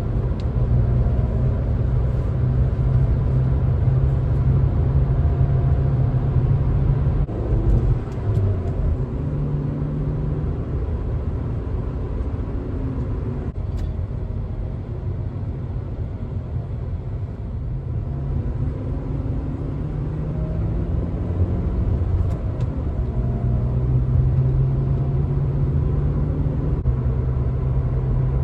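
Car driving, heard from inside the cabin: a steady low drone of engine and road noise that eases off in the middle and builds again near the end.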